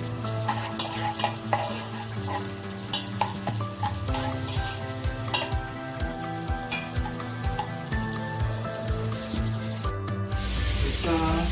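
Food frying and sizzling in a cooking pot while being stirred, with scattered clicks and scrapes of the spoon against the pot, over steady background music.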